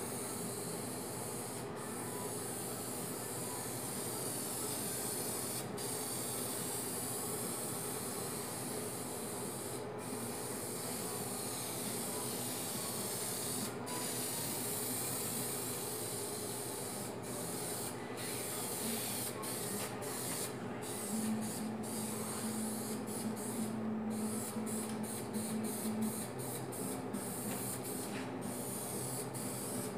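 Aerosol spray paint can hissing in long passes, broken by brief gaps where the nozzle is let off, the gaps coming more often in the second half.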